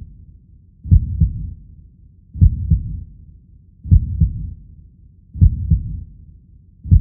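Heartbeat sound effect: a low double thump, lub-dub, repeating evenly about every one and a half seconds.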